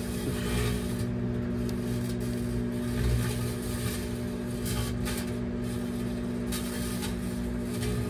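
Microwave oven running with a steady hum while a metal wire-mesh cage arcs inside it, giving off irregular crackling and buzzing bursts.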